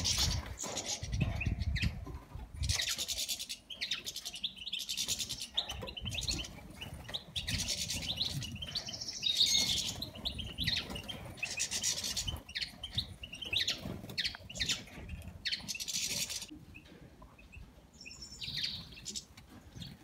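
A flock of captive European goldfinches and Eurasian bullfinches chirping and twittering in quick bursts, with the flutter of wings as birds fly about and squabble.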